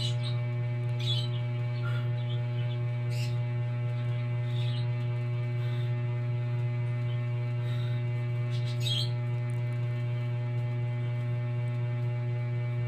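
Steady low electrical hum with several steady overtones. A handful of short, high chirps sound over it at irregular moments, with a quick run of them about nine seconds in.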